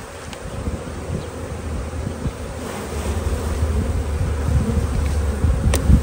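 Honeybees buzzing in a steady hum over an opened box hive's frames, with wind rumbling on the microphone, growing stronger from about halfway.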